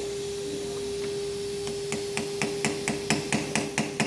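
Small hammer tapping lightly on a brass rivet, flattening ('mushrooming') its head onto the bushing of a Victorinox pocket knife being assembled. After a single tap about a second in, rapid light taps begin at about a second and a half and quicken to around five a second.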